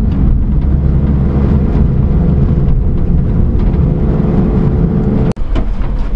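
Cab noise of a Daihatsu Hijet mini-truck on the road: its 660cc engine running steadily under road and drivetrain noise. The sound cuts off abruptly about five seconds in, and a rougher noise follows.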